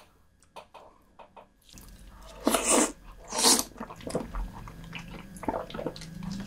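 Close-miked eating of soy-sauce-marinated raw lobster: soft wet mouth clicks at first, then two loud wet mouth bursts about two and a half and three and a half seconds in, followed by quieter chewing clicks.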